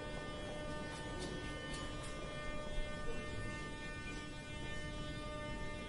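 Moscow Metro train giving a steady electrical hum made of several steady tones over a low rumble, with a few faint clicks about one to two seconds in.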